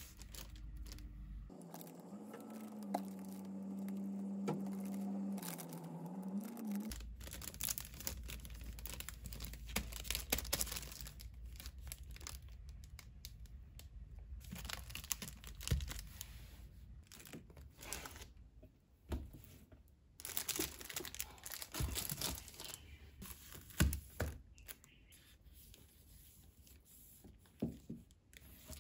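Clear plastic shrink-wrap crinkling and tearing as hands peel it off boxed manga sets, with light knocks of the cardboard boxes being handled. A steady low hum sounds for about five seconds near the start.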